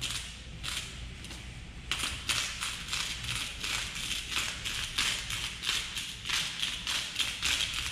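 Hand-twisted salt grinder crunching Himalayan pink salt crystals in quick, regular grinding strokes. The strokes are sparse at first, then come faster and louder, about four a second, from about two seconds in. The grinder gives little salt, so it is turned for a long time.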